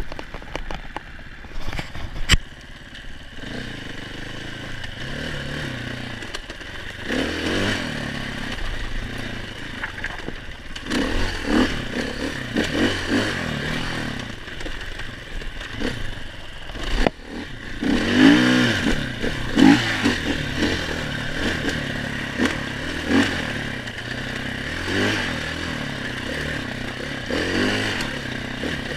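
KTM 500 EXC enduro motorcycle's single-cylinder four-stroke engine running and revving up and down in repeated surges. Two sharp knocks come through, one about two seconds in and one past the halfway point.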